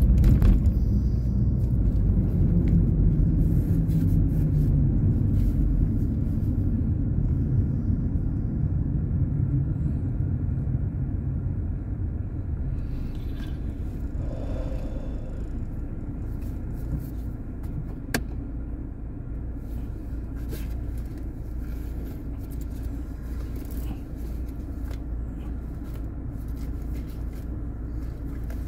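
Low rumble of a car's engine and road noise heard from inside the cabin, gradually dying down over the first dozen seconds as the car slows to a stop, then a steadier, quieter idle.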